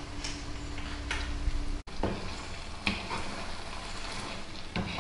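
A pepper mill grinding over a pan of simmering risotto, then, after a sudden break, a wooden spoon stirring and scraping the nearly cooked risotto in a nonstick pan, with a low sizzle from the bubbling rice and three louder strokes.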